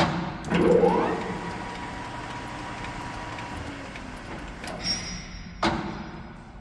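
Lathe machinery: a sudden loud start with a brief rising whine that settles into a steady tone and slowly fades, then two sharp knocks near the end.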